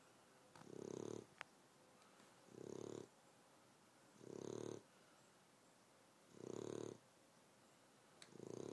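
Corgi snoring in its sleep: short, even snores about every two seconds, five in a row.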